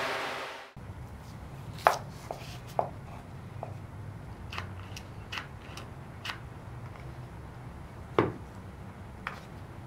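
A series of scattered light clicks and knocks over a low steady hum, with two louder knocks, one about two seconds in and one about eight seconds in.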